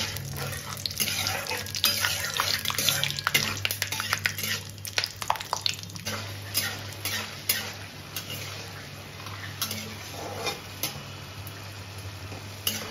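Peanuts frying in hot mustard oil in a metal kadai, sizzling and crackling, with a metal spatula clinking and scraping against the pan. Sharp clicks come thick in the first half and thin out later, over a steady low hum.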